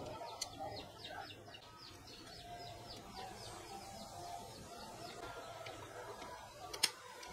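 Birds calling in the background, with a quick run of high chirps through the first few seconds, and one sharp click near the end.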